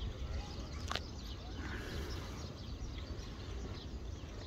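Wind rumbling on the microphone with small birds chirping in the background, and a single sharp click about a second in.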